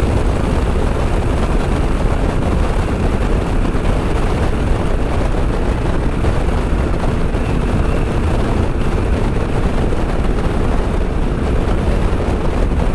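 KTM 890 SMT's parallel-twin engine running steadily through a Vandemon titanium exhaust while riding, mixed with heavy wind rushing over the microphone.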